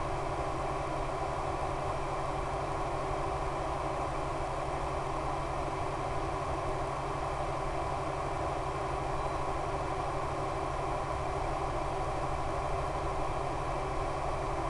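Steady drone of the RC plane's E-flite Power 10 brushless electric motor turning an 11x7 APC propeller at constant cruise throttle, mixed with rushing air noise.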